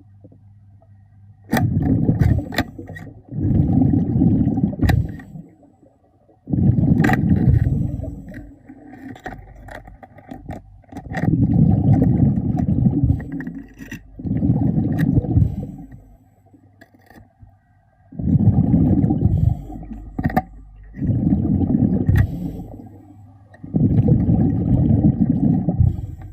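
A diver breathing through a regulator underwater: muffled rumbling bursts of exhaled bubbles, one every few seconds, with sharp clicks and knocks between them.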